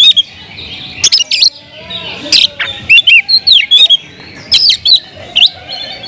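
Oriental magpie-robin (kacer) singing in loud, varied phrases of sharp whistled notes and quick up-and-down glides, with short pauses between the phrases.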